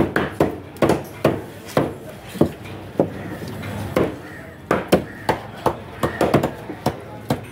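Large knife chopping a trevally into chunks, the blade striking hard through the flesh into a wooden board. A quick run of sharp chops, about two a second, with a brief lull about halfway.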